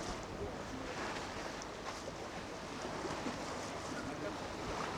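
Steady wind and sea noise, with wind rumbling on the microphone.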